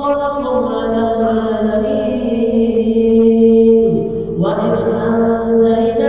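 Quranic ruqyah verses recited in a slow, melodic chant, the voice holding long drawn-out notes, with a dip and rise in pitch about four seconds in.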